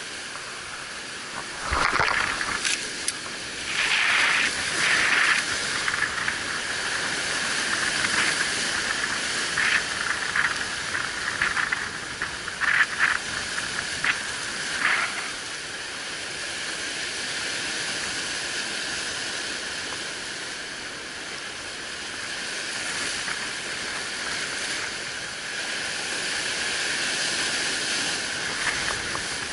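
Sea surf washing and breaking over a rocky shore, a steady hissing wash of foam with louder surges in the first half.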